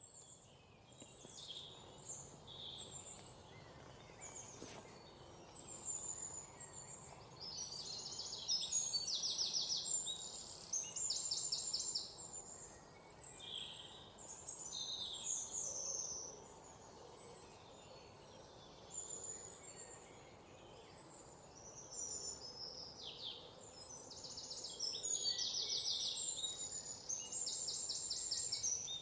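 Several songbirds chirping and calling over a faint steady background hiss. Fast, rapidly repeated trills are loudest about a third of the way in and again near the end.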